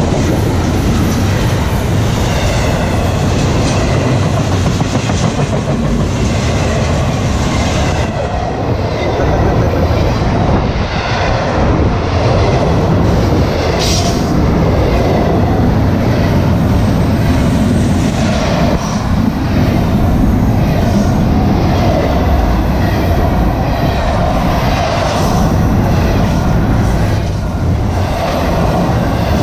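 Florida East Coast Railway intermodal freight cars, double-stack container cars and then trailers on flatcars, rolling past at close range: a loud, steady rumble of wheels on rail with repeated clacking at the rail joints.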